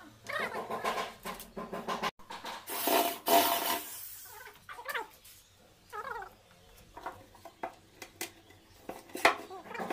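Red cordless drill/driver running in two bursts, each about a second long, driving screws into the cabinet floor. After that come scattered small knocks and a few short squeaks that fall in pitch.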